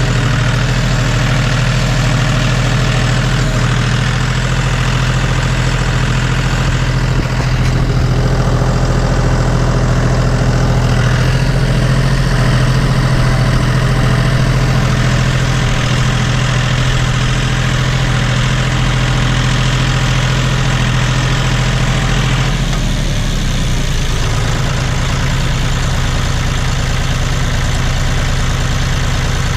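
John Deere 5205 tractor's three-cylinder diesel engine running steadily on its newly fitted Stanadyne injection pump. The note shifts slightly about three quarters of the way through.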